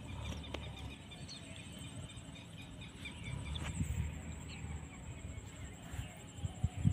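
Outdoor ambience: a bird calling in a run of short, evenly spaced chirps for the first few seconds, over a steady high-pitched insect drone and occasional low rumbles.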